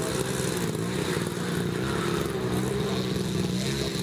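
Engine of a radio-controlled Piper Pawnee scale model airplane running at low throttle as it taxis on grass, its pitch wavering slightly.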